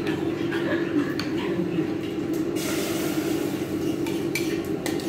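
A bowl and utensils clinking and knocking as cooking ingredients are handled, with a brief hiss about two and a half seconds in, all over a steady low hum.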